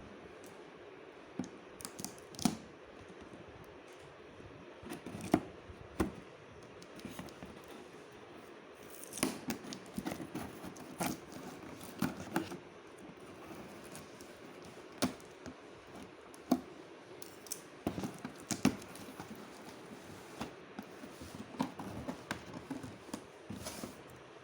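Cardboard box and packaging being handled and unpacked: irregular taps, knocks and rustles, with a few sharper knocks standing out.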